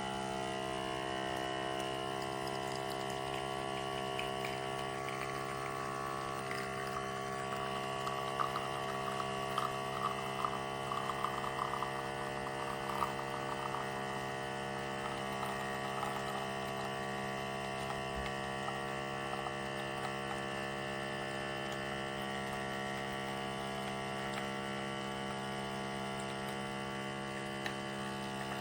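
Electric pump of an Outin Nano portable espresso machine running with a steady hum, pushing hot water through the coffee. A patch of small crackles comes from about eight to thirteen seconds in.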